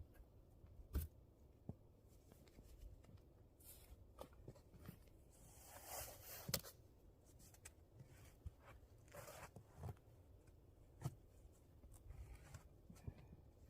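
Faint scattered knocks and short rustles from handling, the sharpest knocks about a second in and about six and a half seconds in.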